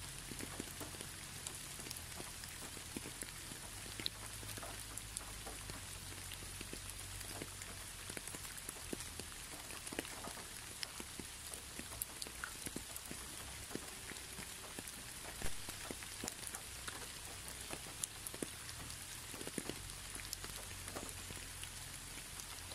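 Steady rain: an even hiss with many scattered sharp drop ticks over a low steady rumble, one tick louder a little past the middle.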